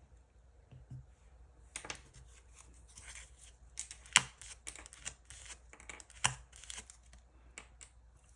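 Nail-stamping tools worked over a metal stamping plate: a run of short scraping swipes and small clicks, with two sharper clicks about four and six seconds in.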